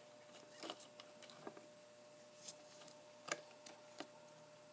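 A few faint, scattered clicks and taps of the plastic clock spring housing being handled, over a faint steady hum.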